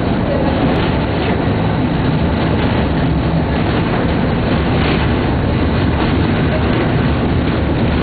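Vintage electric tram running along its track, heard from inside the wooden car: a steady rumble of the car and its wheels on the rails.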